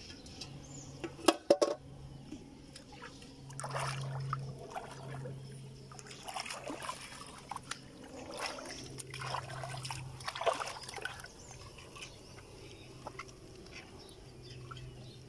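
Shallow pond water splashing and sloshing in irregular bursts as hands and a caught catfish move in it. A few sharp knocks come about a second and a half in.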